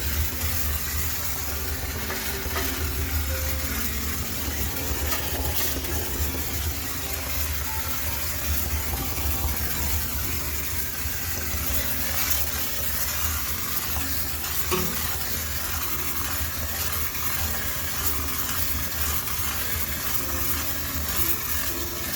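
High-pressure steam cleaner spraying steam into a washing machine, giving a steady hiss over a constant low machine hum.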